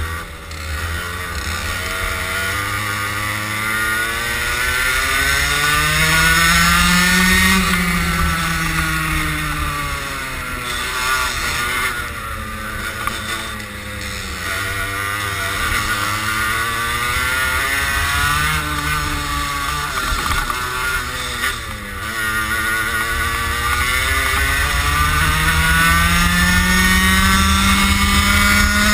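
Onboard sound of a racing kart's single-cylinder engine lapping a circuit, revs climbing and dropping several times through the corners, with a long climb over the last few seconds. Wind rumbles on the microphone throughout.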